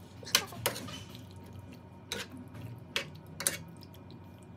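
Kitchen utensils clinking against a pot as pasta is handled, about five sharp taps with short ringing and light wet sounds between them.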